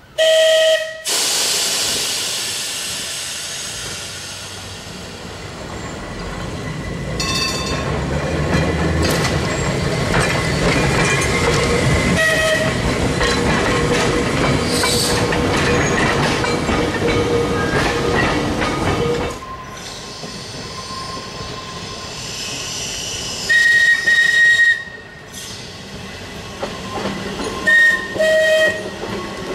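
Manx Electric Railway electric tramcars: a loud passing rumble as a tram and its open crossbench trailer roll by on the rails, with short whistle blasts about four times: right at the start, in the middle, a longer one near the end and a last one just after.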